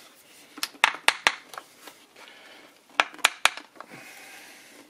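Sharp metallic clicks in two quick bursts of three or four, about a second in and again about three seconds in. A steel screwdriver is knocking against a gear-shift lever that salt corrosion has seized in a Mercury 2.5 hp outboard's casing, as the lever is worked back and forth.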